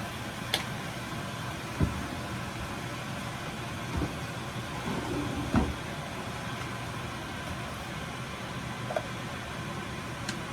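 A steady hiss with a faint hum from a pan of ground beef, green bell pepper and onion cooking, broken by about six light knocks and taps as garlic salt is shaken in.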